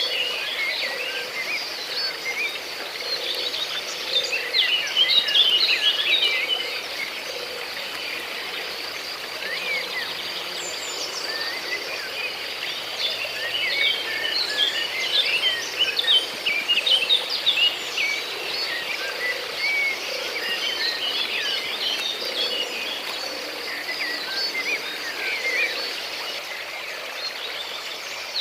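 Outdoor nature ambience: many birds chirping and calling in quick, overlapping notes over a steady, high insect drone.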